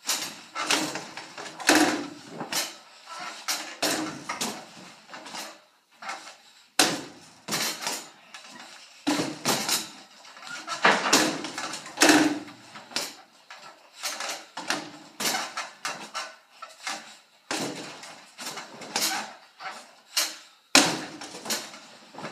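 Basketballs repeatedly thudding against the backboard and rims of a two-hoop arcade basketball machine and dropping back onto its ramp. The impacts are irregular, coming in quick clusters with short gaps.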